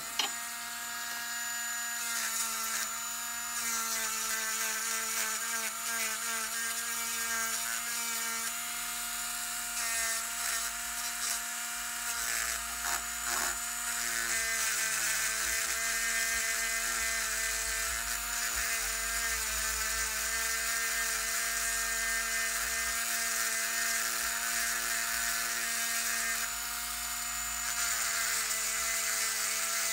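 Pen-style electric rotary tool (a manicure drill) with a small diamond bur, running at steady high speed and grinding burrs off the sawn edges of a metal fork. A constant motor whine sits under a gritty grinding hiss that swells and eases as the bit is worked along the edge.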